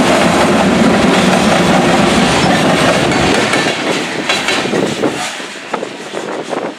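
Covered hopper cars of a freight sand train rolling past, steel wheels rumbling on the rails. Past the middle the sound fades as the last car moves away, leaving a few separate wheel clicks near the end.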